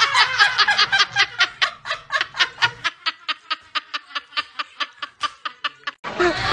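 A person laughing in a long run of quick, even 'ha' pulses, about five a second, lasting about six seconds.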